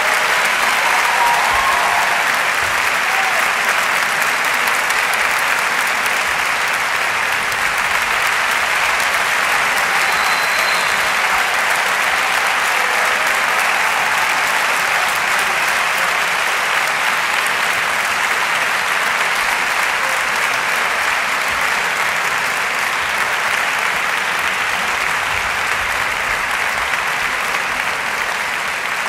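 Audience applauding, a dense, steady clapping that eases off slightly near the end.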